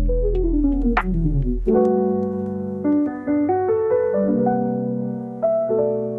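Background piano music: a quick falling run of notes, then a series of held chords.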